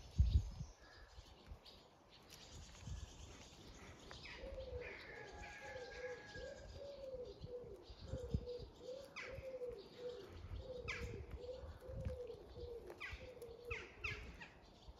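A bird repeats a low call note over and over, about twice a second, starting about four seconds in. Smaller birds chirp higher up at the same time.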